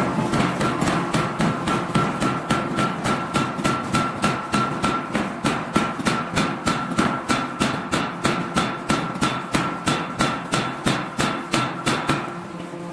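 Forging hammer striking metal in rapid, evenly spaced blows, about three a second, over a steady ringing tone; the blows stop about twelve seconds in.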